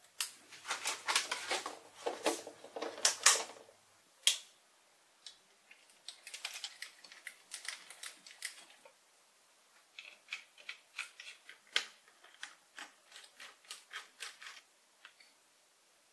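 Small metallic clicks and scrapes from screws being turned by hand with a hex key and a small screwdriver, coming in three quick runs separated by short pauses.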